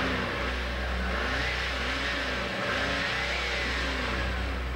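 Military Mercedes-Benz G-Class off-roader's engine revving up and down as it drives through sand, its pitch rising and falling over a steady low rumble.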